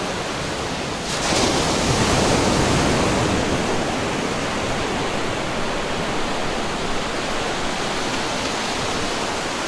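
Running water rushing steadily. About a second in the flow swells louder and brighter, then eases back to an even rush after a few seconds.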